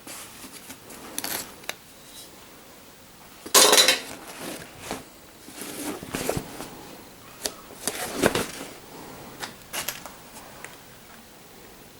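Metal parts clinking and knocking as they are handled on a workbench, in irregular bursts, loudest about four seconds in and again near eight seconds.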